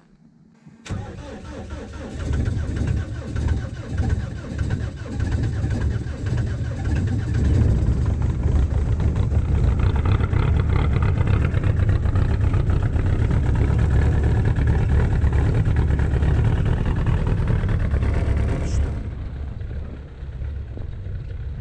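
Hovercraft's diesel engine starting about a second in, cold after preheating in hard frost, then running unevenly and building up. It runs loud and steady from about eight seconds in and drops back near the end.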